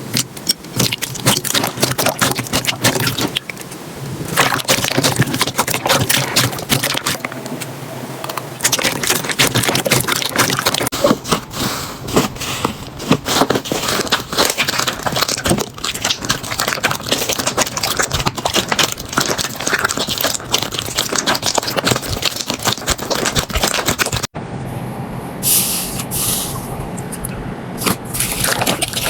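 Slime being squeezed and pressed by hand: a dense, irregular run of crackles, clicks and pops, broken off once near the end before another run starts.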